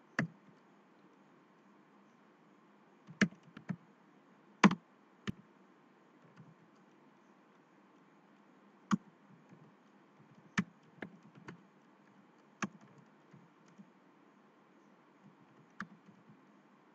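Computer keyboard keys being pressed, a dozen or so separate clicks at uneven spacing: a few in quick succession, then pauses of a second or more, over a faint steady hiss.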